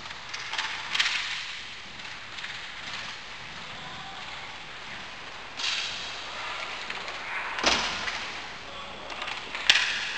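Roller hockey play: several sharp clacks of sticks and puck, the loudest near the end, over a steady hiss in the rink.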